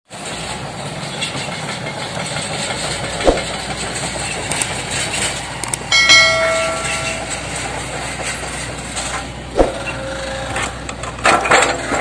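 Hydraulic excavator's diesel engine running steadily as its log grapple lifts and stacks logs, with two sharp knocks of wood or steel about a third of the way in and again near the three-quarter mark. About halfway through a short electronic chime sounds, and a few clicks follow near the end.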